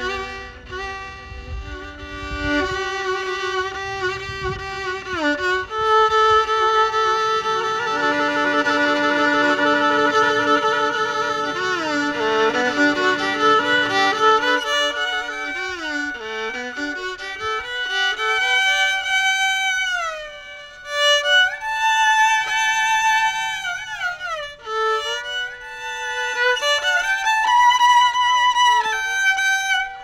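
Violin music: a single melody full of sliding, ornamented notes and vibrato, over a low accompaniment that drops out about halfway.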